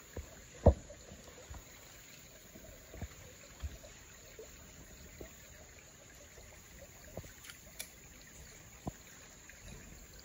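Creek water trickling faintly, with a few scattered light knocks and clicks; the loudest comes a little under a second in.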